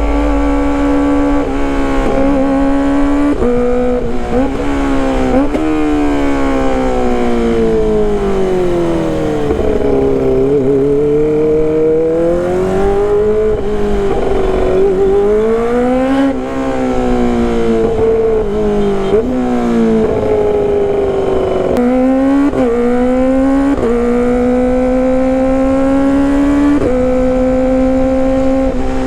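Kawasaki ZX-25RR's 250 cc inline-four engine running under way through its exhaust, the pitch repeatedly climbing and falling as the throttle opens and closes, with sudden steps in pitch where gears are changed. It is loud throughout, with a long slide down in pitch about a third of the way in and several short climbs later on.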